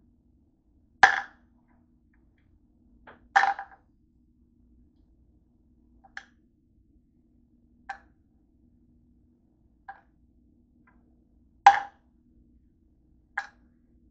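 Hard clicks of tablets and capsules being picked up and set down on a wooden desk: seven separate taps spread a couple of seconds apart, the first, second and sixth the loudest.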